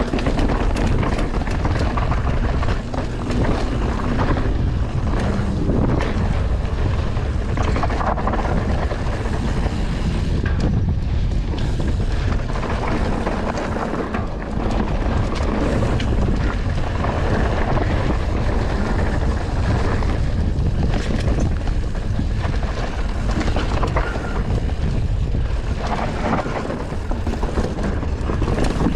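Wind buffeting the microphone over the rumble and rattle of a Norco Sight mountain bike's tyres rolling fast over a dirt trail, steady and loud.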